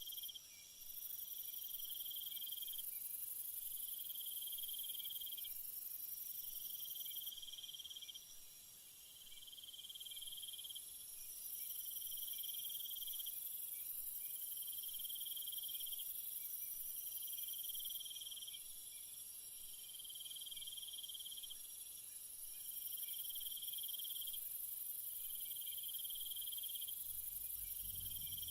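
Jungle insect chorus: a high, shrill buzz that swells and fades in long stretches, over a trilling call that repeats about every two and a half seconds. A faint low rumble comes in near the end.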